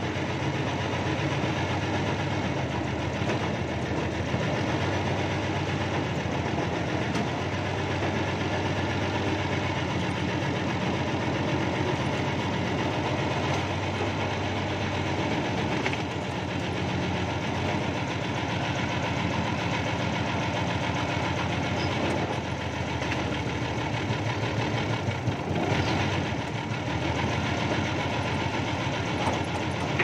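Backhoe's diesel engine running steadily, heard from inside the operator's cab, with a fast even firing beat. It grows a little louder and rougher for a few seconds near the end.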